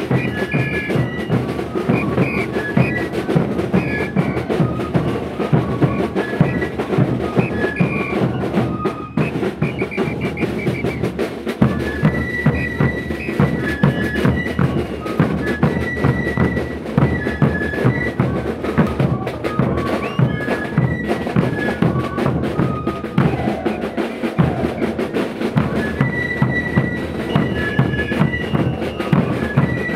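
Andean carnival music played by a band: a repeating high flute melody over a steady, dense beat of drums.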